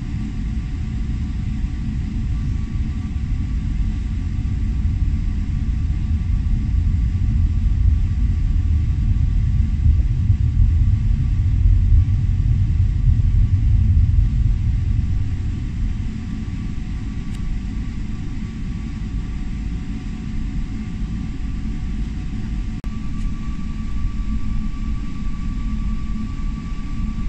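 Aircraft cabin noise from a plane on the move at the airport: a steady low rumble under a thin, steady engine whine. The rumble grows louder about a third of the way in and eases back a little past the middle.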